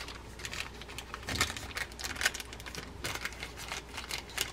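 Small plastic parts bag crinkling and rustling as it is handled and opened, in irregular crackles and clicks.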